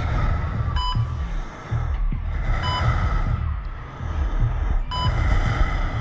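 Heart-monitor beep sound effect: three short, high beeps about two seconds apart, over a low pulsing music bed.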